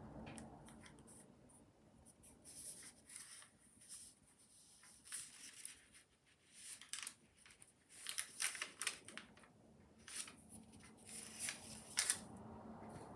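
Faint, short scratchy strokes and paper rustle, in irregular clusters: a paper template being handled and traced over on a thin sheet of decorating wax.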